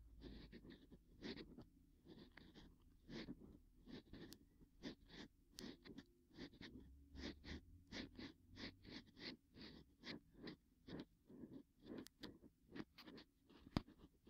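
Ear pick scraping inside the ear of a binaural microphone: a faint run of short scratching strokes, about two a second, with one sharper click near the end.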